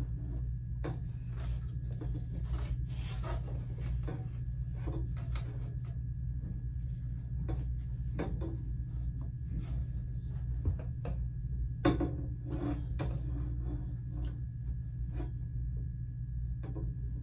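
Cotton waffle-weave robes rustling as they are handled and hung on a coat rack, with scattered light clicks and knocks, the sharpest about twelve seconds in, over a steady low hum.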